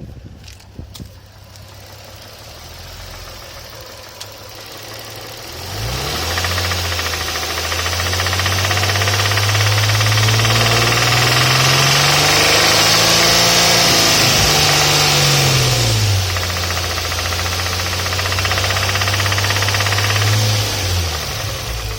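Infiniti G35's V6 engine starting about six seconds in, revving gently up and back down, then running steadily before dropping away near the end, with a knock from a spun connecting-rod bearing on cylinder 2.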